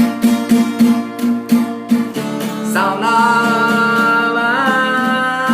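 Acoustic guitar strummed in a steady rhythm. About three seconds in a singer comes in and holds one long note on the word "sound" over the guitar.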